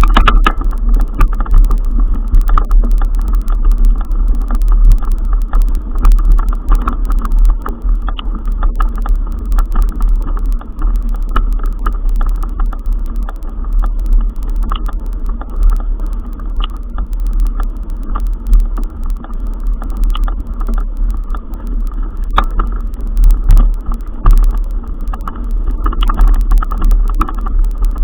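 Steady low wind rumble buffeting the microphone, with frequent small clicks and rattles throughout.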